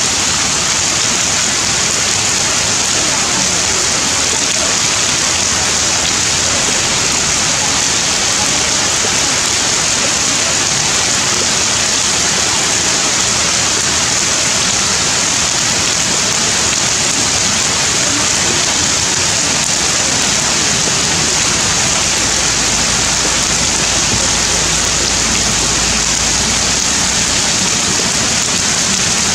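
Heavy rain falling steadily, an even downpour hissing on leaves and stone.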